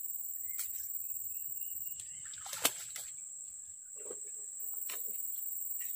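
A single small splash or sharp tap at the creek's edge, about two and a half seconds in, over a steady high-pitched hiss.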